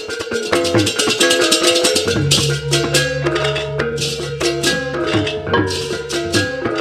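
Balinese gamelan music playing a bebarongan piece: quick repeated metallophone notes over cymbal clashes, with a low gong tone held from about two seconds in.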